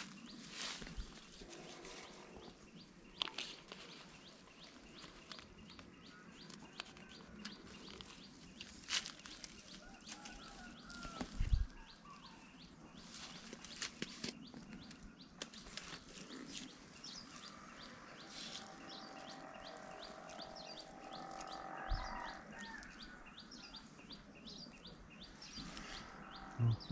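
Small birds chirping, with a rapid, evenly repeated high chirping from about halfway in. Scattered sharp clicks and a dull thump sound now and then.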